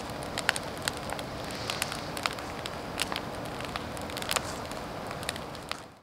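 Wood bonfire burning: a steady hiss with frequent sharp crackles and pops, fading out at the very end.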